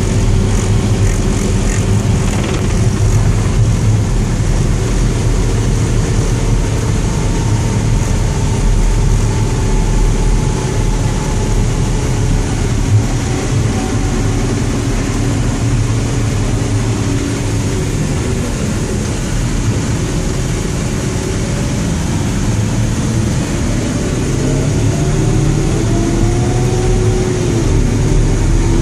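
MRAP armored truck's diesel engine running under way, with tyre and road noise on a gravel road, heard from inside the cab as a steady drone. A few rising whines come in near the end.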